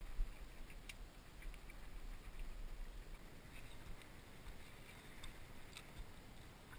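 Wind buffeting the microphone on a small boat at sea, with the low rumble and hiss of wind and water. Several faint sharp clicks come through it, the loudest just after the start.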